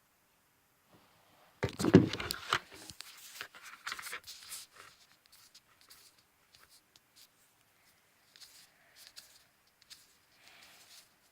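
A loud rustle and scrape, like something being handled or bumped near the microphone, about two seconds in, followed by scattered faint rustles and clicks in a small room.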